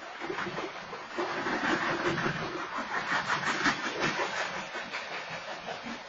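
BNSF train cars rolling through a grade crossing: a rough, steady rumble and rattle of wheels on the rails, growing louder about a second in and easing near the end.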